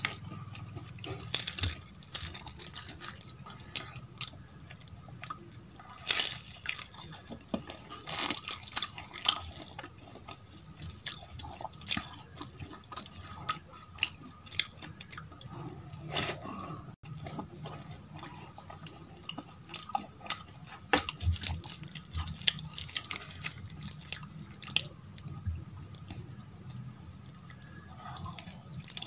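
Close-up eating sounds: crisp deep-fried kachori crunching and being chewed, with irregular crackles and wet squishes as pieces are torn and dipped in potato curry by hand.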